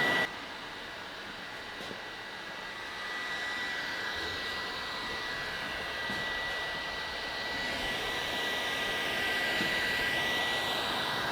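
Heat gun blowing hot air, a steady rush with a thin high whine, warming freshly applied epoxy so it will cure in the cold. It grows a little louder about three seconds in.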